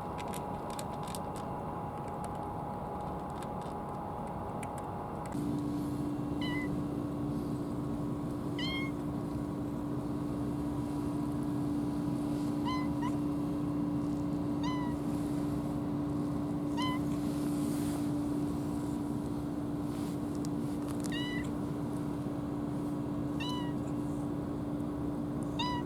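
A cat meowing in short, rising meows, about eight of them spaced a couple of seconds apart. Under them runs a steady low machinery hum from the boat, which starts about five seconds in.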